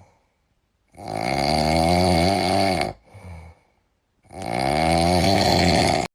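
Loud snoring: two long drawn-in snores about three seconds apart with a short, fainter breath between them, cutting off abruptly near the end.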